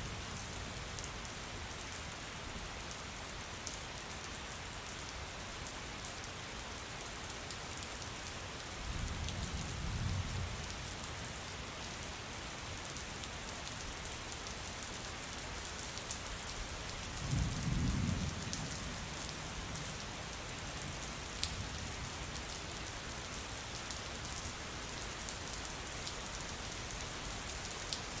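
Steady rain falling with scattered drops ticking, and two low rumbles of distant thunder, about nine seconds in and again around seventeen seconds.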